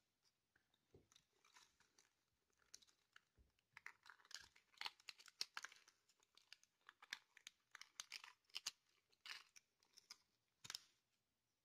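Faint, irregular crinkling and rustling of a small clear plastic zip-lock bag being handled.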